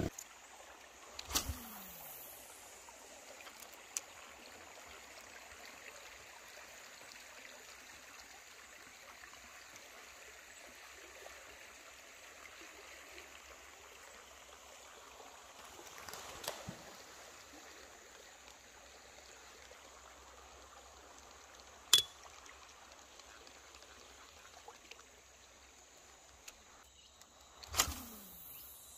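River water faintly trickling and lapping against a kayak's hull as it moves downstream. A few sharp knocks break in, the loudest about three-quarters of the way through.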